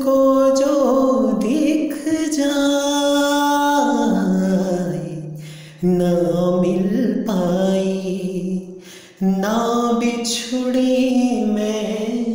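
Background music: a single voice singing slow, long-held melodic phrases with little or no accompaniment, pausing briefly twice.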